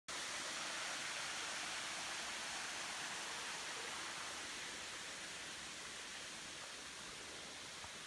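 Steady rushing hiss of a waterfall, even and without a beat, growing slightly fainter over the few seconds.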